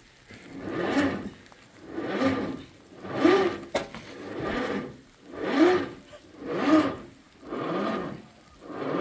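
Synthetic winch rope being hauled uphill by hand and dragged over rock and dirt, in regular pulls about one a second; each pull gives a short rubbing sound that rises and falls in pitch.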